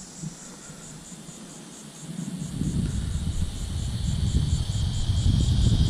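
Insects trilling in a steady high chorus that pulses about five times a second. From about halfway through, a low rumbling noise on the microphone grows louder and takes over as the loudest sound.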